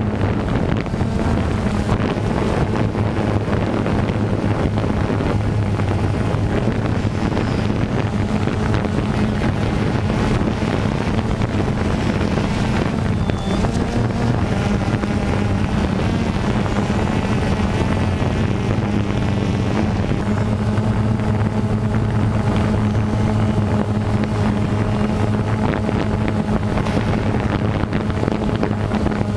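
DJI Phantom 2 quadcopter's electric motors and propellers giving a steady drone-like hum, picked up by the camera carried on it, with wind buffeting the microphone.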